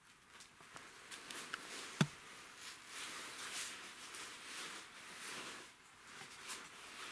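Rustling of a jacket against a clip-on microphone as the wearer moves, with scattered small clicks and one sharp knock about two seconds in.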